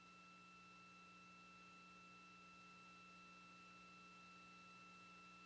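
Near silence: a faint steady hiss with faint unchanging high tones and a low hum underneath.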